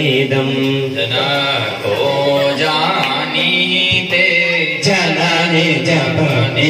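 A voice chanting a devotional hymn in long held, melodic notes without a break.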